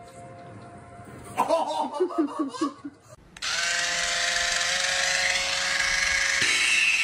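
Electric foot callus remover's small motor whirring steadily as its spinning roller file is pressed to a rug, the tone shifting higher near the end. Before it, a short burst of laughter.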